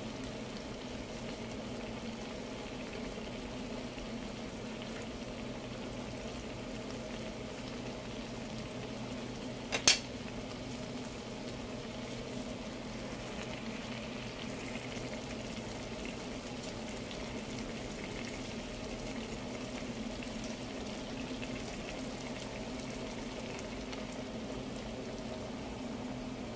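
Taro leaves in coconut milk simmering in a nonstick pan: a steady low bubbling and sizzle over a faint steady hum, with one sharp knock about ten seconds in.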